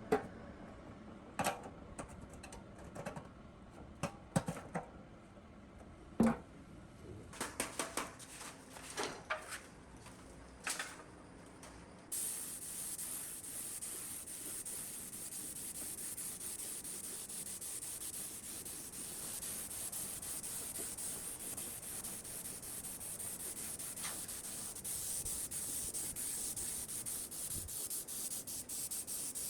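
Scattered sharp knocks and clicks of metal parts and tools being handled, then a steady hissing rub that starts abruptly about twelve seconds in and keeps going, typical of abrasive surface work on an engine part.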